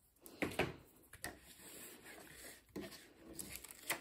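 Paper and tape being handled on a tabletop: soft rustling with a few light taps and clicks.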